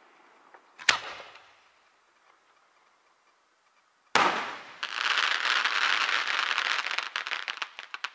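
Aerial firework shells bursting: one bang about a second in and another about four seconds in, the second followed by about three seconds of dense, rapid crackling that thins out near the end.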